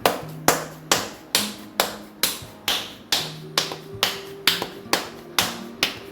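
Hands slapping and patting a ball of millet (bajri and jowar) dough, shaping it into a round rotla: sharp, even pats about twice a second, with light music underneath.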